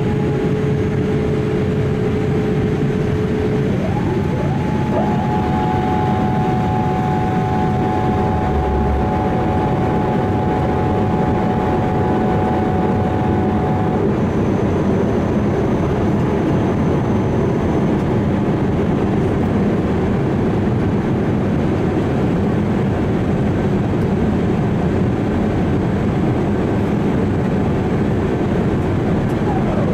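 Steady, loud rushing noise of a Boeing 787-8 airliner with faint steady whines over it. One whine drops out about four seconds in as a higher one takes over, and that one fades around the middle.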